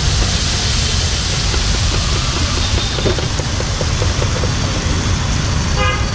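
Water flicked onto a hot dosa griddle sizzling steadily as it flashes to steam, over a continuous low rumble.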